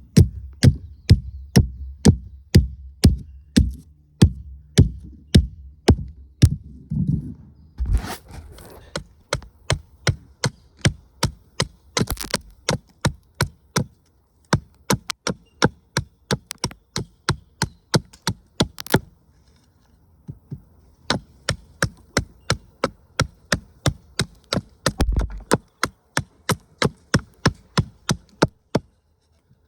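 Hand drill for friction fire: the wooden spindle spun back and forth between the palms in the hearth board, giving sharp rhythmic clicks about three a second, with brief pauses as the hands go back to the top of the spindle.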